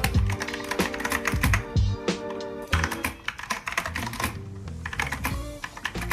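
Typing on a mechanical keyboard with clicky Kailh Box White V2 switches: quick, irregular key clicks over background music.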